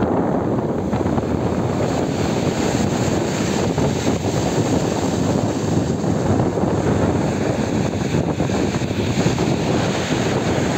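Storm surf on a shingle sea shore, heard as a continuous dense rush, with wind buffeting the microphone.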